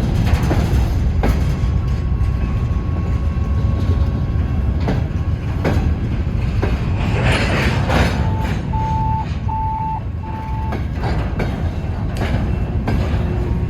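Freight train cars rolling past, a steady low rumble with wheels clicking over rail joints. About two thirds of the way through, four short electronic beeps at one pitch sound in an even series.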